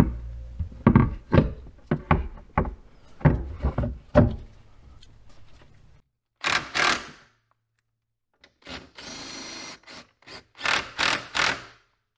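Hard knocks and thunks as the Dodge Viper's plastic subwoofer enclosure is pushed into its mount against the car body, then several short runs of a cordless drill driver tightening the mounting bolts.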